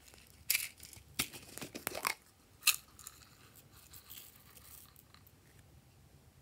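Sharp crackling clicks of a small plastic jar being handled and opened, the loudest snap about two and a half seconds in, followed by faint rustling as small pieces are tipped into a glass dish.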